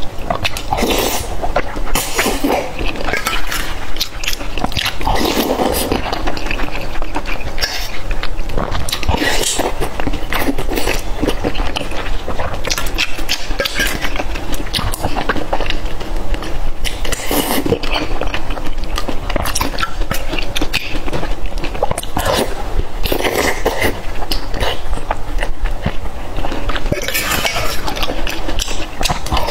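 Close-miked eating sounds: chewing and biting on food, with a metal spoon clinking against a stainless steel bowl now and then.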